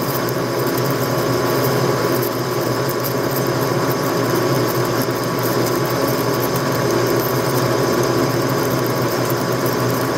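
Dremel rotary tool running steadily: an even motor hum with a thin high tone and hiss, with no change in speed or load.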